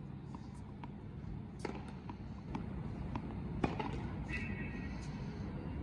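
Tennis ball bounced on a hard court, a few faint, separate knocks over a steady low background rumble, with a brief high squeak partway through.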